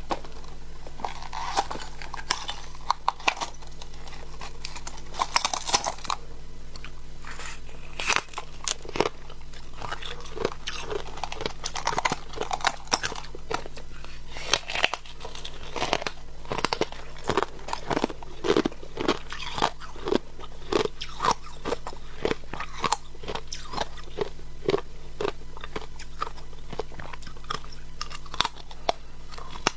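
Close-miked crunching and chewing of shaved ice: repeated sharp, crisp bites and crunches, coming more quickly and evenly in the second half.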